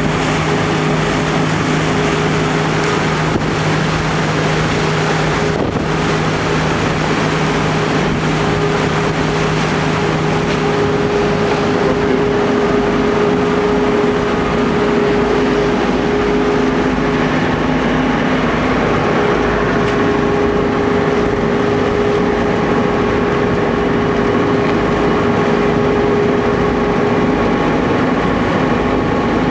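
Tour boat's engine running with a steady hum, heard from the stern over the churning wake, with wind on the microphone.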